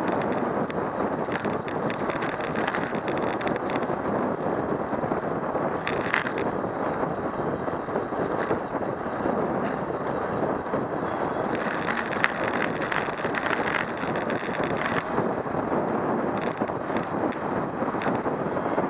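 Steady wind rush over the microphone of a bicycle descending a paved road at speed, with tyre noise on the asphalt. Scattered short rattles and ticks come through, thickest for a few seconds past the middle.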